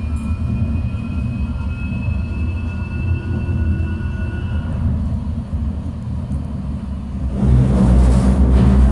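Tram running, heard from inside the car: a steady low rumble of wheels and running gear, with a faint whine slowly rising in pitch over the first few seconds. About seven seconds in the noise suddenly becomes louder and rougher.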